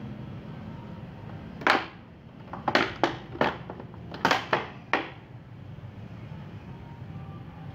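Thin plastic water bottle crackling as it is gripped and worked with a candle-heated metal tool: about eight sharp crackles bunched between about two and five seconds in, over a steady low hum.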